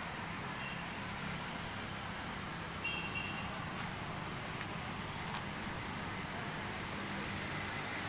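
Steady outdoor background noise with a low hum, and a couple of faint short high chirps about one and three seconds in.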